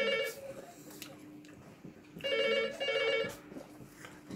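Telephone ringing in a double-ring pattern: a pair of short trilling rings ends just as the sound starts, and another pair comes about two seconds in.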